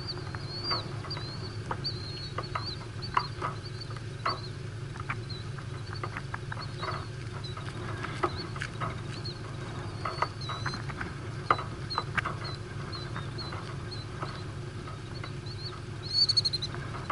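Birds chirping over and over in short high calls, with a louder chirp near the end, against a steady low rumble and scattered soft ticks.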